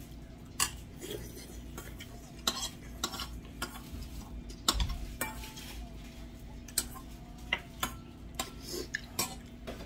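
Metal spoon and chopsticks clinking and scraping against a stainless steel bowl while eating: a scattered series of short, sharp clinks, about one a second, over a faint steady hum.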